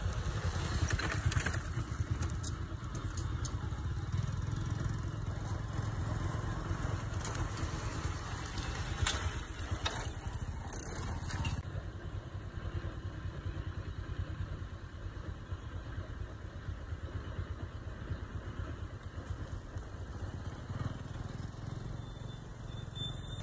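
Small vehicle engine running steadily with a low rumble, with occasional knocks and rattles and one sharper click a little before halfway.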